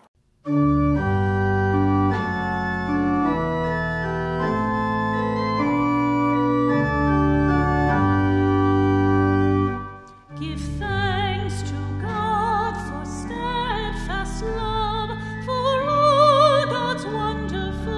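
Church organ playing sustained chords, starting about half a second in. After a brief break at about ten seconds, a solo singer with strong vibrato comes in over the organ.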